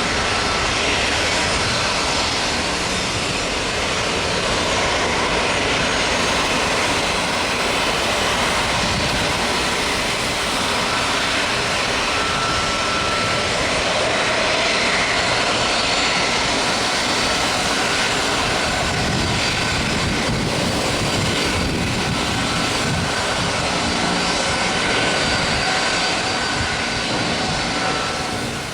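Airliner jet engines running, a steady loud rush with a faint high whine over it.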